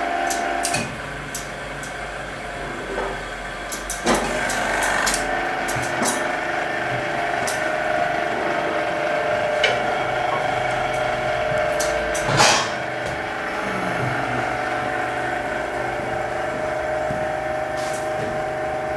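Heavy oak beams knocking and thudding as they are handled, a few sharp knocks with the loudest about two-thirds of the way through, over a steady workshop hum.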